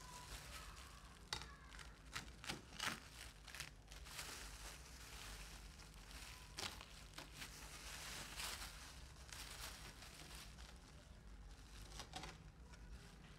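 Faint crackling crunches as a knife cuts through the crisp-fried, batter-coated crust of a gabin cracker fritter, with the crinkle of a thin plastic food glove. The crackles come in a cluster in the first few seconds, then a few more are scattered through the rest.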